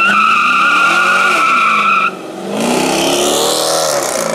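Dodge Challenger's rear tyres squealing in a burnout launch, a loud steady high squeal with the engine revving up and down beneath it. The squeal stops sharply about two seconds in, and the engine then climbs again as the car accelerates away.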